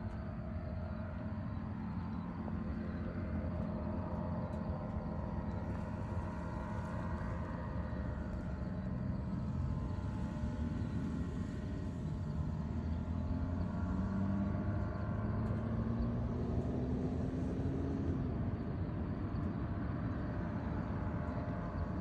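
Paramotor (powered paraglider) engine and propeller droning overhead. It is a steady hum, and one of its tones slowly rises in pitch through the middle.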